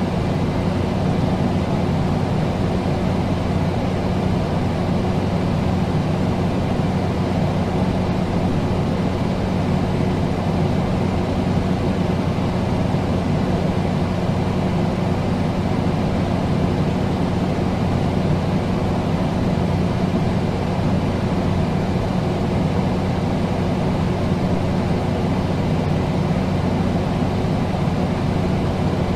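Air conditioner running steadily: an even rush of air noise over a low, constant hum.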